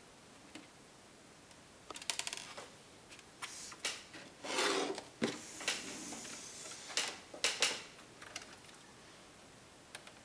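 Hands handling a laptop and a small screwdriver: scattered clicks and knocks on the plastic case, with a quick run of clicks about two seconds in and a brief rustle near the middle.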